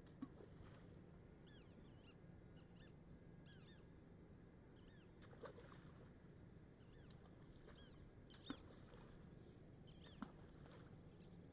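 Quiet lakeside with faint bird chirps throughout, broken by a few short soft splashes, the loudest about eight and a half seconds in, as balls of flour-dough groundbait are thrown into the water.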